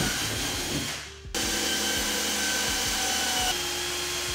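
Cordless drill running a larger bit to widen holes through a car's plastic trunk lid. It stops briefly about a second in, then runs steadily again with a whirring whine.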